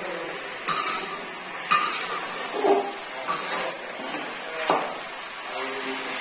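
Steel cooking pot and utensils clinking and knocking as they are handled, about four sharp clinks spread apart, over a steady background hiss.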